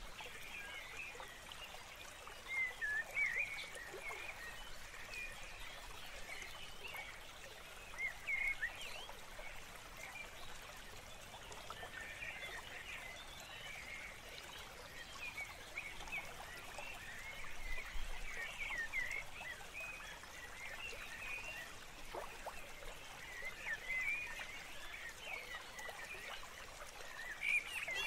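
Birds chirping: many short, quick calls come and go throughout over a faint steady hiss.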